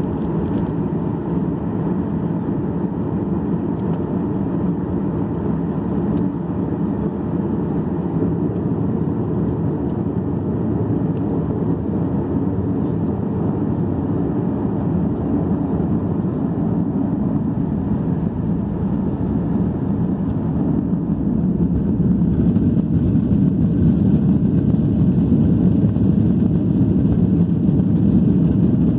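Jet airliner cabin noise heard from a window seat over the wing: a steady rumble of engines and airflow as the Boeing 737 rolls along the ground. It grows louder about two-thirds of the way through.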